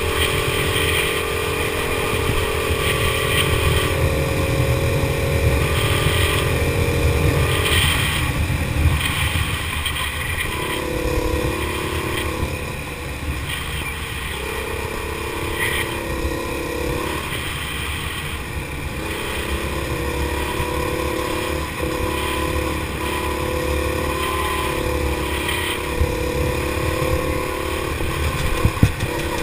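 Go-kart engine heard onboard, running hard with its note dropping and picking up again several times as the kart slows for corners and accelerates out. A low rumble runs underneath.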